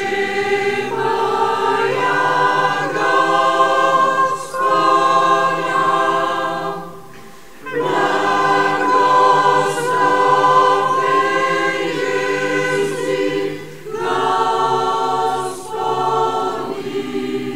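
Mixed choir of men and women singing sustained chords in long phrases, pausing briefly twice.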